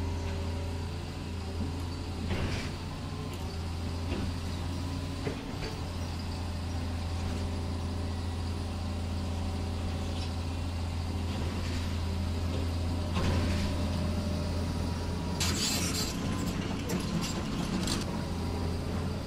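Huina radio-controlled model excavator running, a steady low hum with a few short hissing bursts as it works.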